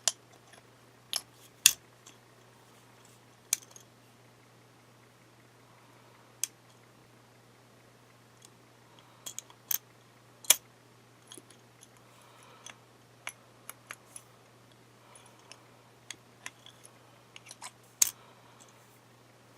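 Scattered sharp clicks and light taps of small hard objects being handled, irregular and spread through the whole stretch, over a faint steady low hum.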